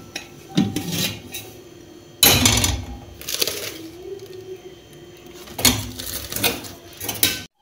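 Metal cooking pots and an upturned metal bowl used as a lid clanking and scraping as they are handled on a stove: several separate knocks, the loudest a little over two seconds in.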